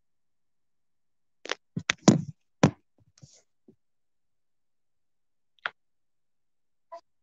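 A quick run of clicks and knocks about a second and a half in, then a few faint single clicks, from the phone being handled against the microphone.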